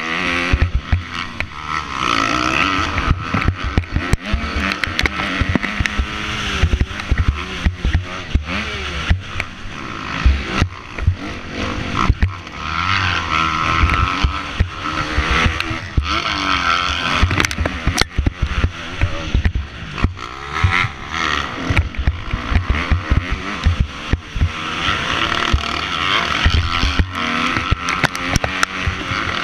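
Kawasaki KX250F four-stroke motocross bike engine revving hard, its pitch rising and falling again and again as the rider shifts and throttles around the track. It is heard through a helmet-mounted camera, with constant wind buffeting and thumps over the bumps.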